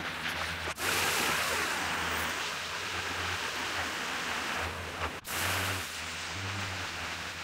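Pressure washer jetting high-pressure water onto resin-bound paving: a steady hiss of spray over a low hum from the machine. The sound drops out briefly about a second in and again about five seconds in.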